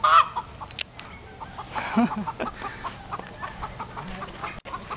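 Feral chickens clucking in a fast, steady run of short notes, about four or five a second, with a loud, rising call right at the start.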